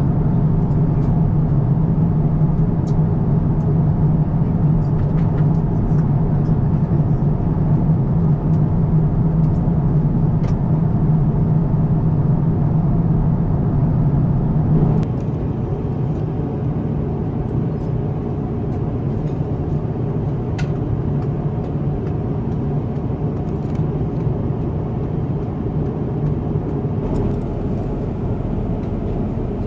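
Steady rumble of engine and airflow noise inside an Airbus A350-1000 cabin in flight, with a few faint ticks. It drops a step in loudness about halfway through, then carries on steady.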